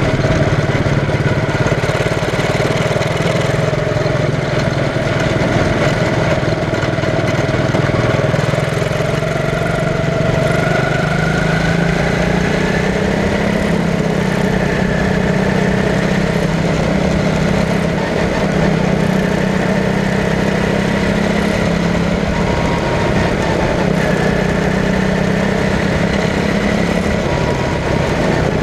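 Quarter midget race car's engine running steadily, heard from on board the car. Its pitch rises and falls slightly a few times as the car circles the track.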